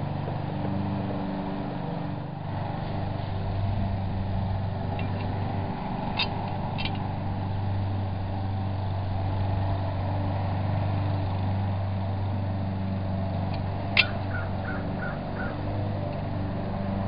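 Steady low hum of a motor, with sharp metal clinks from the mailbox post's swivel joint and steel upright being handled: two about six seconds in and a louder one near fourteen seconds, followed by a few faint quick ticks.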